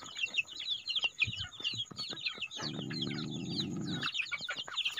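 A flock of chickens clucking, with many quick high chirps throughout. A low, rasping rumble lasts about a second and a half past the middle.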